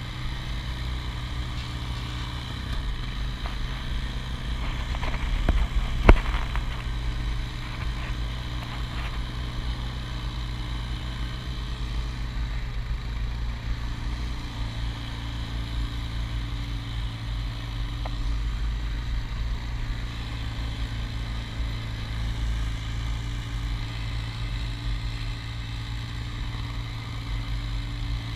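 Honda Foreman 450 ATV engine running steadily while riding along a dirt trail, with one sharp knock about six seconds in.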